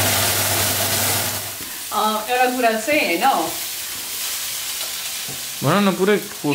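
Kinema (fermented soybeans) sizzling as it is stirred and fried in a pan. A steady hum stops about one and a half seconds in.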